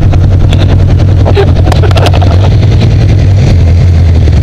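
Polaris RZR side-by-side's engine running steadily, a loud, even low drone, with a few light knocks and rattles about half a second and two seconds in.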